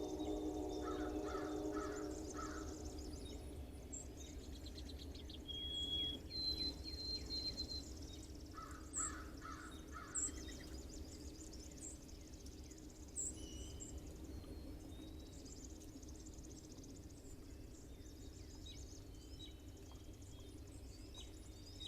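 Distant train whistle holding a chord that fades out over the first few seconds, with birds calling in short series of notes and whistling, and a few sharp clicks near the middle.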